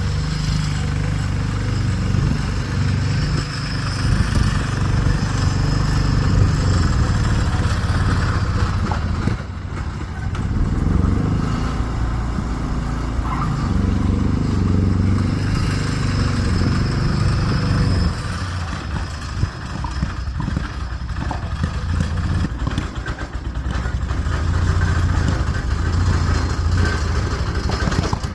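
Lawn tractor's single-cylinder engine running under load, its speed surging and sagging as it bogs down: with the choke frozen it cannot pull enough fuel.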